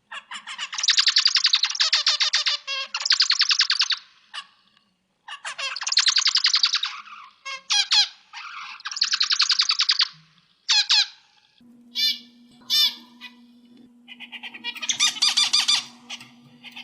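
Zebra finch song: bouts of rapid buzzy, nasal notes lasting one to three seconds, broken by short single calls. A faint steady hum comes in about twelve seconds in.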